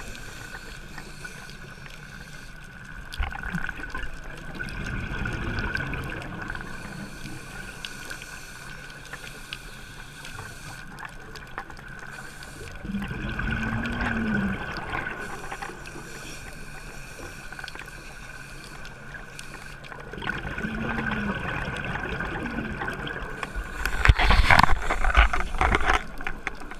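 Scuba diver's breathing through a regulator heard underwater: slow breath cycles with the rumble of exhaled bubbles about every eight seconds, ending in a louder crackle of bubbles near the end. A steady faint high tone runs underneath.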